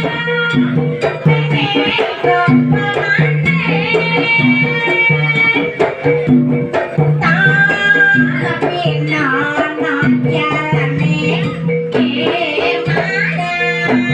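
Javanese jaranan accompaniment music: hand drums and a repeating low pulse of struck tones, with a high, wavering melody line bending in pitch over the top.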